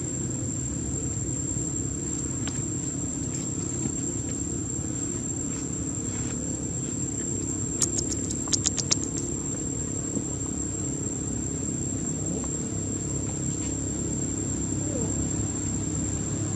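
Steady high-pitched insect drone over a low rumble, broken about eight seconds in by a quick run of sharp clicks.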